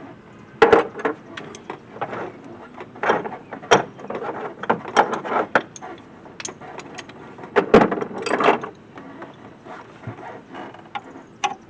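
Metal hand tools, nut drivers and sockets, clinking and clattering in irregular sharp knocks as they are sorted and tried on a fastener to find the right size.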